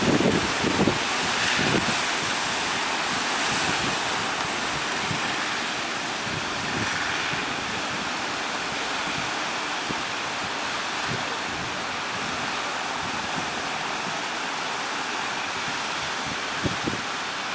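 Ocean surf breaking and washing in a steady roar, with wind buffeting the microphone in the first couple of seconds.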